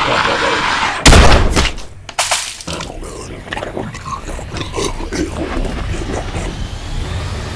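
A loud gunshot about a second in, followed by a second, weaker blast about a second later. Then come scattered small clicks and crackles.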